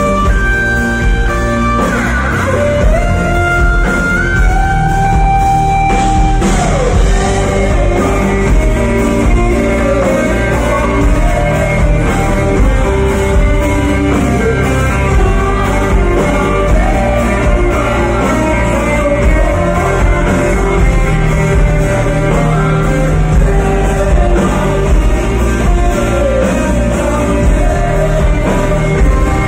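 Rock band playing live: an electric guitar leads with bent, held notes over drums and bass, and a singing voice comes in over the band later on.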